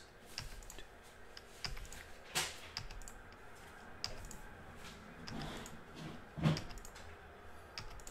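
Computer mouse clicking: a scattering of faint clicks, with two louder knocks about two and a half and six and a half seconds in.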